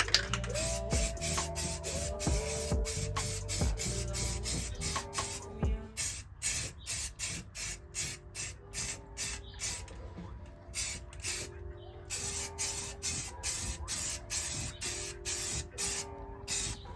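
Aerosol spray paint can hissing in rapid short bursts, about two or three a second, pausing briefly a few times. Background music with low sliding bass notes plays underneath.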